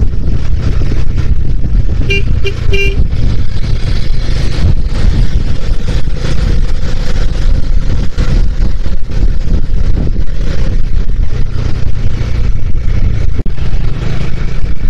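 Steady wind and engine rumble of a Bajaj Dominar motorcycle being ridden along a road. A vehicle horn beeps about three times in quick, short toots about two seconds in.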